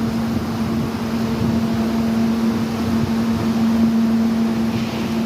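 Heavy rain falling as a steady hiss, over a constant low hum from a running machine.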